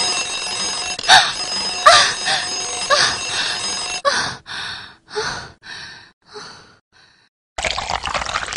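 Alarm clock ringing for about four seconds, with louder rings about one and two seconds in, then a run of short sounds about twice a second that fade out. Near the end a tap runs water into a cup.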